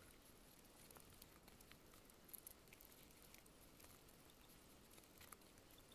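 Near silence: faint, scattered soft clicks of eating by hand, fingers in rice and chewing, over a faint hiss.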